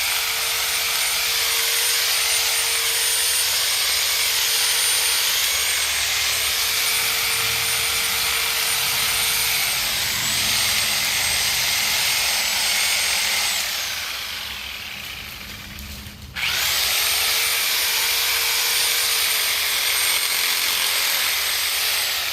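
Sawzall reciprocating saw running and cutting through tree branches, its whine dipping briefly in pitch as the blade bogs down in the wood. About two-thirds through it winds down and stops for a moment, then starts up again and keeps cutting.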